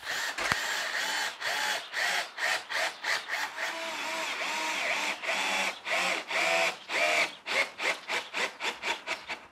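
Cordless drill boring upward through the wooden keel and floors of a plywood boat to make the keel bolt holes, running in quick pulses with the pitch rising and falling as the bit bites into the timber, with a steadier run in the middle.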